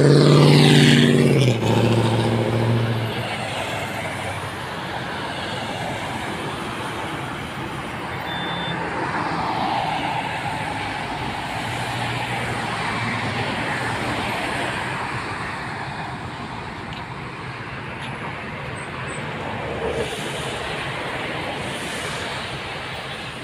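Road traffic. A vehicle passes close in the first second or two, its engine loud and its pitch falling as it goes by. Then comes a steady wash of tyre and engine noise, with more cars swishing past in slower swells.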